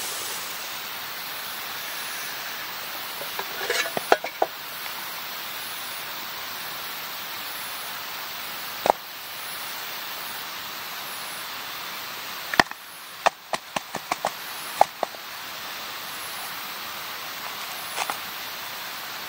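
Steady outdoor background of insects chirping, with scattered sharp clicks and knocks of camp gear being handled: a few about four seconds in, one near the middle, and a quick cluster a little past two-thirds of the way through.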